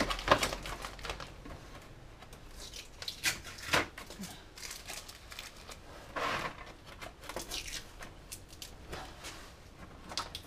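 Packing tape on a cardboard box being slit with a retractable utility knife and pulled away, with intermittent scraping, tearing and cardboard rustling and a few sharp clicks.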